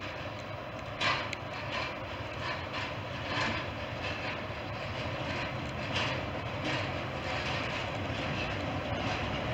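Class 17 'Clayton' diesel locomotive drawing slowly into the platform, its engine running with a steady drone, broken by irregular short clatters from the wheels on the track.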